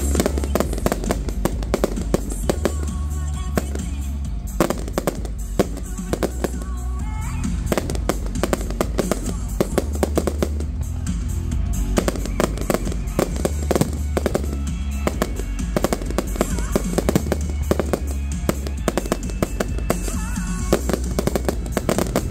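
Fireworks going off in rapid succession, many sharp bangs and crackles a second, over loud music from the display's sound system.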